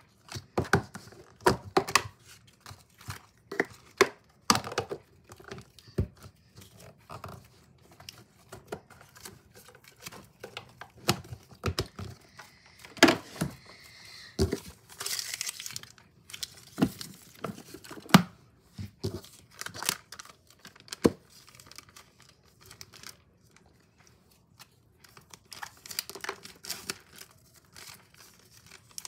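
Packaging being torn open and crumpled by hand as a small item is unwrapped: irregular crinkling and tearing with scattered sharp taps and clicks, busiest around the middle.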